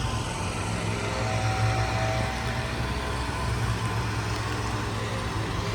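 Lawn mower engine running steadily, a low even drone.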